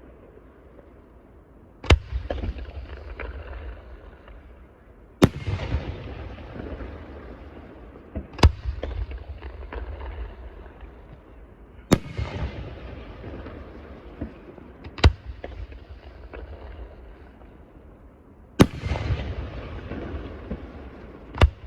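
Aerial firework shells bursting: seven sharp bangs, about one every three seconds. Each is followed by a low rumbling echo and scattered crackles.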